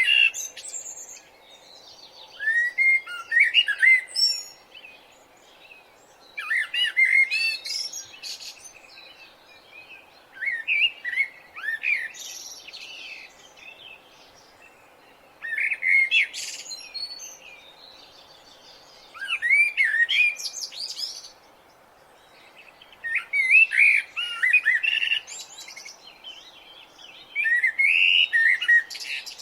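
Songbirds singing in the early morning: short, quick phrases of swooping, warbling high notes, about eight in all, coming every three to four seconds. A faint steady background hiss runs underneath.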